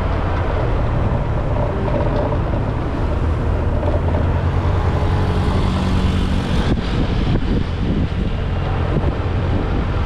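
Motorcycle engine running under way, with a dense steady low rumble; the engine note stands out from about three seconds in and changes abruptly near seven seconds.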